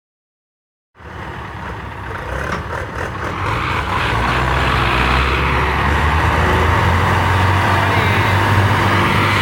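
Heavy diesel tractor engine running under load, pulling a heavy trolley. It comes in after a second of silence, builds over the next few seconds, then holds steady with a broad rushing noise over it.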